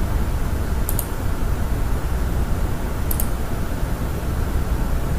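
Steady low hum and hiss of background room noise, with two short mouse clicks about one and three seconds in.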